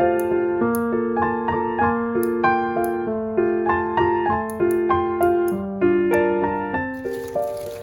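Background music: a gentle, bright piano melody, notes struck at an even pace of about two a second, each ringing and fading.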